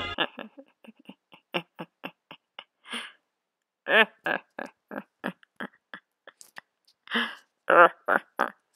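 A person's voice making a quick run of short grunting sounds, about four a second, with louder, wavering ones about four seconds in and again near the end.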